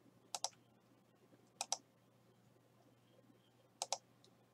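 Computer mouse button clicks: three quick pairs of clicks, about a second apart and then two seconds apart, as menu items in a spreadsheet are clicked.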